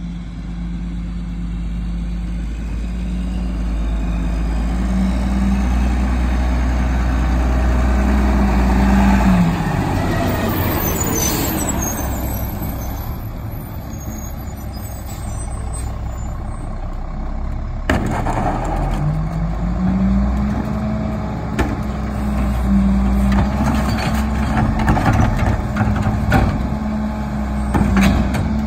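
Mack MR McNeilus rear-loader garbage truck's diesel engine running as the truck pulls up. About a third of the way in the engine note drops and an air brake hiss follows. Later the engine revs up and holds a higher note while the rear packer runs, with knocks from carts at the hopper near the end.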